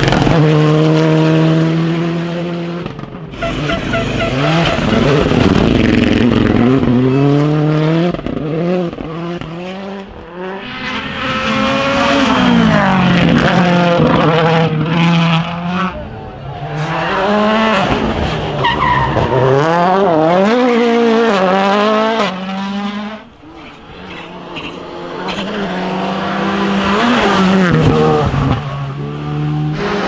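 Rally cars' turbocharged four-cylinder engines revving hard as several cars pass in turn. The pitch climbs and drops back through quick gear changes, then falls away as each car goes by.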